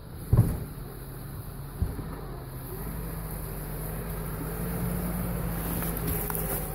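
Lada Niva's engine running steadily under load as the car pulls up a slope, growing louder as it approaches. A sharp thump about half a second in, the loudest sound, and a smaller knock near two seconds.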